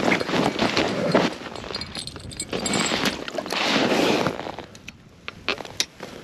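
Footsteps crunching through packed snow, with jacket fabric rustling against the chest-mounted microphone. A few sharp clicks and knocks near the end come from handling the ice-fishing rod.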